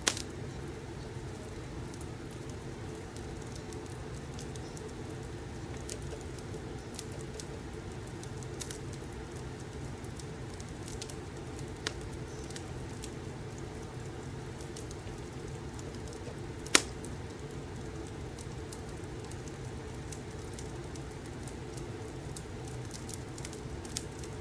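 Wood fire crackling: a steady low rush with scattered sharp pops, the loudest about two-thirds of the way through.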